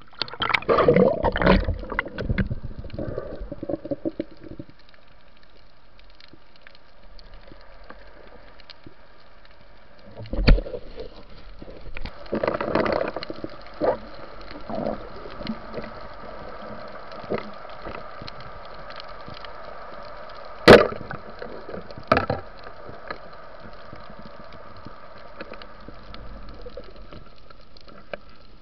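Water splashing and sloshing for the first few seconds as a diver goes under, then the muffled hiss of being underwater, broken by a few sharp knocks and clicks, the loudest about twenty seconds in.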